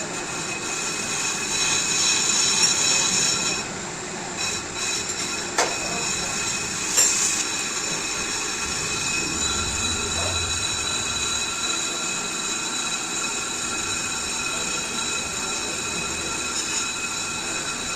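Car disc brake rotor being skimmed on a brake lathe, the cutting tool on the turning metal giving a steady squeal of several high tones, with a couple of sharp clicks about five and seven seconds in.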